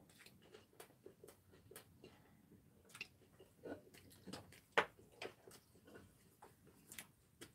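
Quiet eating sounds at a table: scattered light clicks of chopsticks against plates and dishes with some soft chewing, and one sharper click a little before five seconds in.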